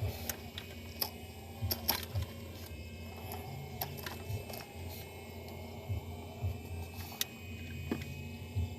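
Small electric motors and gears of a radio-controlled construction model whirring steadily, with short rising-and-falling whines and scattered sharp clicks.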